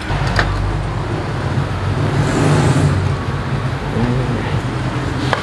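Low rumble of a motor vehicle on a nearby road, swelling to a peak about halfway through and then easing off, like a car passing by.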